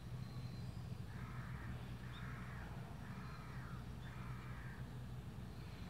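A crow cawing four times, about a second apart, over a steady low hum.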